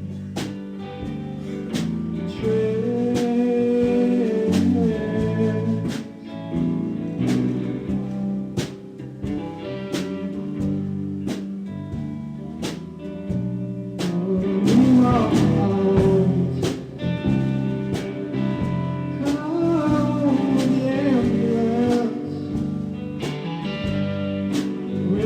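Live band music: electric guitars playing over a steady drum beat, in an instrumental stretch between sung lines.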